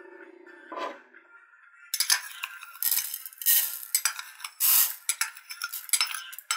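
Millet grains poured and spooned from a small cup into a bowl, pattering and rattling against it. The pour comes in several bursts starting about two seconds in.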